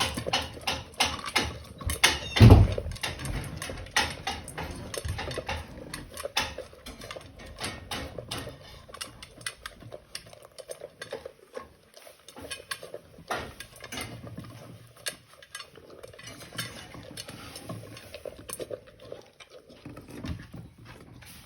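A dog eating from a bowl: rapid clicking and clinking of the bowl and food, with one much louder knock about two and a half seconds in. The clicking thins out and grows quieter about halfway through.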